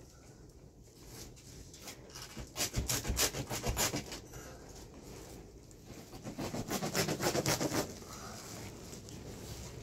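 Quick scratching and rubbing strokes against the woven cloth of a hut roof and its wooden poles. They come in two bursts of rapid strokes, one about two and a half seconds in and one about six and a half seconds in.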